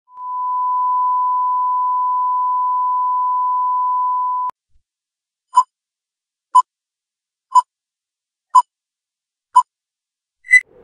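Test-bars reference tone: a steady single pure tone for about four and a half seconds that cuts off suddenly. After a second of silence come five short beeps at the same pitch, one a second, like a countdown leader, then one last, higher beep near the end.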